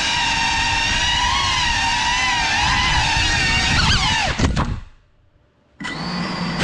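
Small FPV quadcopter's brushless motors and propellers whining, the pitch wobbling with the throttle. About four seconds in the pitch swoops and there are a few sharp knocks. The sound then cuts out for about a second before the motor whine comes back.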